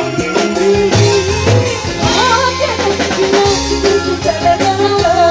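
Live dangdut koplo band playing: drums and bass keep a steady beat under a wavering melody line.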